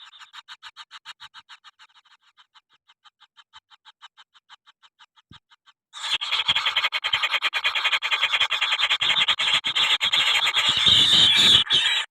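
Kingfisher chick calling: a rapid pulsed chatter of about nine pulses a second that fades away, then about halfway through a loud, harsh, continuous chattering cry.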